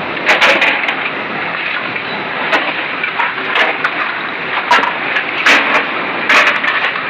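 Hard plastic scrap clattering in a series of sharp clacks, about eight scattered irregularly, over a loud steady rushing noise.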